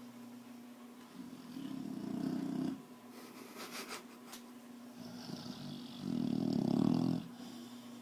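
Pit bull snoring in her sleep: two long snores, one about a second in and a louder one around six seconds in.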